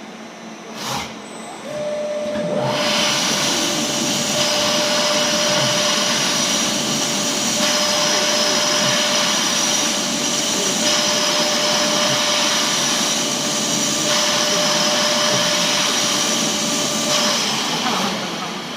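Automatic drilling balancing machine running a cycle: after a click, a steady motor whine starts, then loud, steady machine noise with a high whine sets in and runs for about fifteen seconds before stopping near the end.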